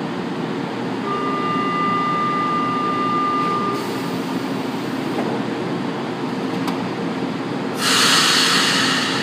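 São Paulo Metro train humming at the platform, with a steady warning tone about a second in that lasts almost three seconds, the door-closing signal. A faint knock follows a few seconds later, then near the end a loud rush of air hiss as the train starts to pull out.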